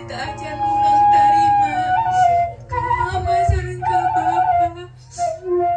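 Music: a slow melody of long held, sung notes, one of them wavering, over a steady low accompaniment.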